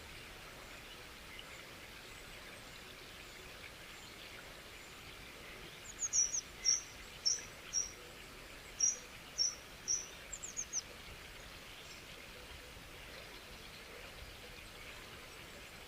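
A bird singing a phrase of about seven short, high notes, roughly half a second apart, ending in a few quicker notes. Under it runs a steady faint hiss of water.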